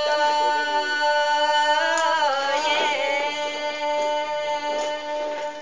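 Women's group singing: long held notes in two-part harmony over an instrumental backing, with the voices sliding in pitch about two to three seconds in.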